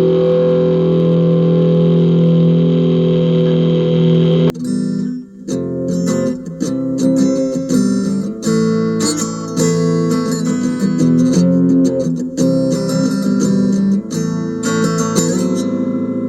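Electric guitar, a Mexican Fender Stratocaster fingerpicked through a Hotone Pulze Mini amp. A held chord rings steadily, cuts off abruptly about four and a half seconds in, and a run of shorter chords and single notes follows with a brighter tone.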